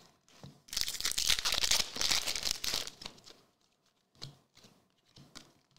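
Foil trading-card pack wrapper crinkling and tearing as it is ripped open, for about two and a half seconds, followed by a few faint taps of cards being handled.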